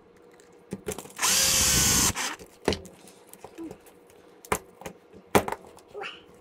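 Cordless electric screwdriver running for about a second as it drives a screw into the buggy's chassis. A few sharp clicks of small parts and tools being handled follow.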